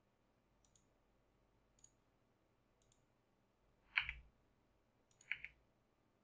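Quiet clicks of a computer mouse and keyboard: faint ticks about once a second, then two louder clicks about four and five seconds in.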